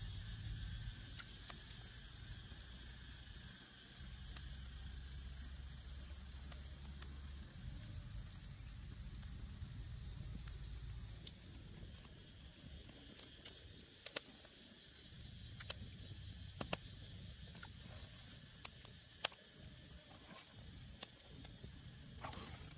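Faint outdoor background: a low rumble and a steady high hiss, with scattered sharp clicks or snaps through the second half.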